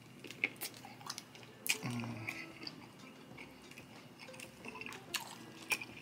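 Close-miked mouth sounds of a person biting into and chewing smoked sausage: soft, wet clicks and smacks scattered through the chewing.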